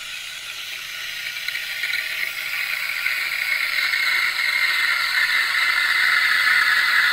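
Rocket espresso machine's steam wand submerged in a stainless steel pitcher, heating milk without foaming it: a steady hissing screech that grows louder as it goes.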